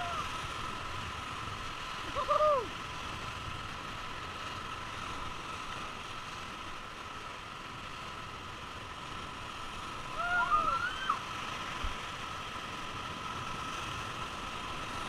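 Steady rushing of a swollen, muddy whitewater river around an inflatable raft running rapids. Twice, about two seconds in and again about ten seconds in, a short rising-and-falling shout cuts through.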